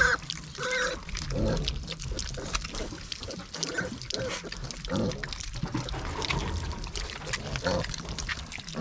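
A group of young piglets grunting and squealing as they crowd a pan of wet feed, with many small clicks from their eating.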